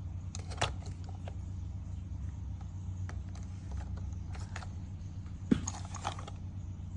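Scattered light clicks and rattles of plastic parts being handled, the loudest a sharp knock about five and a half seconds in, over a steady low hum.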